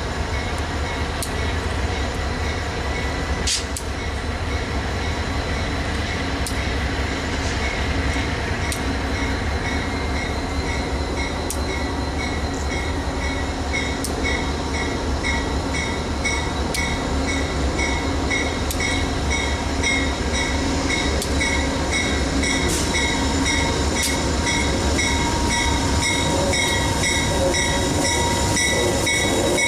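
Diesel locomotives rumbling: Amtrak GE P42DC No. 184 pulling out of the station, its bell ringing in a steady beat that grows louder as it nears, over the idle of a waiting freight diesel. A held squeal joins near the end as the train rolls past on the curve.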